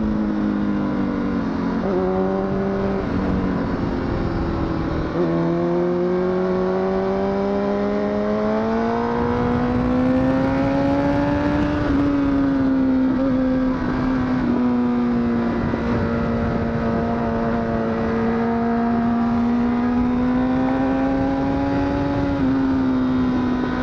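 Honda CBR1000RR (SC57) inline-four engine under way, its pitch dipping a couple of times early on, then climbing slowly and holding high as the bike pulls, over rushing wind.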